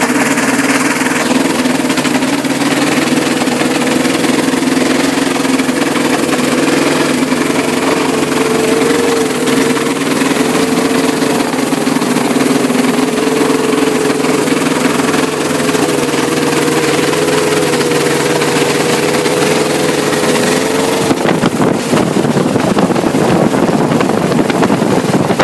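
Rotax 582 two-cylinder two-stroke engine of a Rans S-10 ultralight running steadily on the ground, driving its propeller with the cowling off. Near the end the steady hum gives way to a rougher, noisier sound.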